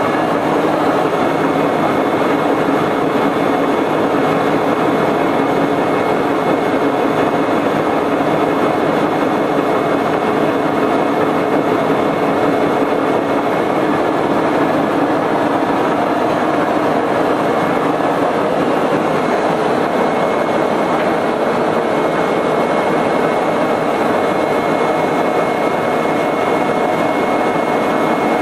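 Webster & Bennett EM 72-inch vertical borer running under power with its table turning: a steady machine drone with a constant thin high whine.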